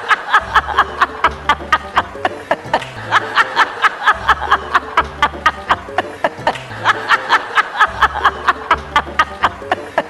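A rapid cackling laugh, a fast, even string of sharp 'ha' bursts about five a second, played over a low bass line that repeats in short blocks.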